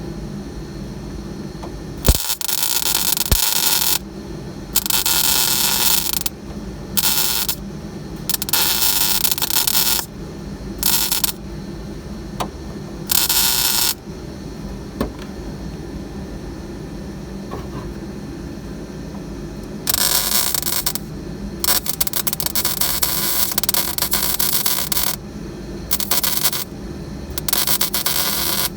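Electric welder arc crackling in about ten separate bursts, each from half a second to three seconds long, as plug welds join a floor pan to the frame rail through drilled holes.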